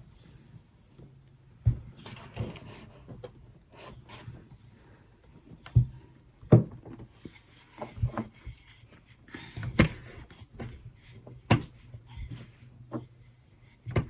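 Irregular knocks and thumps on a kitchen worktop, with soft rubbing in between, as shortbread dough is handled and rolled out.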